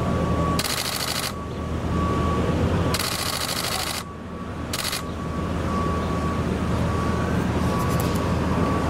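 Three bursts of rapid camera shutter clicks from a still camera firing in continuous mode: the first under a second, the second about a second, the third short.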